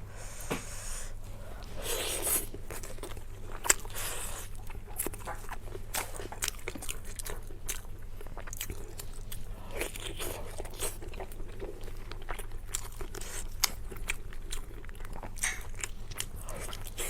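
A person eating close to the microphone, biting and chewing with many short, sharp crunchy clicks, over a low steady hum.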